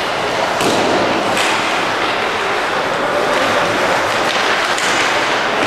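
Ice hockey rink din during play, a steady wash of arena noise broken by three sharp knocks against the boards, about half a second, a second and a half and nearly five seconds in.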